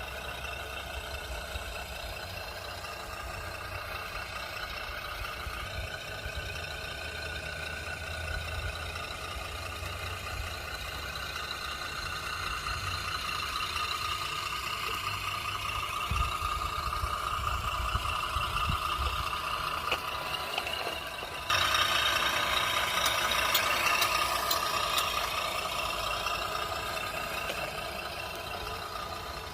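A vehicle engine running steadily, growing louder about two-thirds of the way through.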